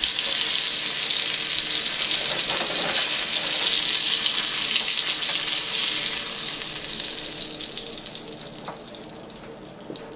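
Red snapper fillet sizzling in hot oil in a nonstick frying pan, a steady hiss. The sizzle dies away over the last few seconds as the fillet is lifted out of the pan.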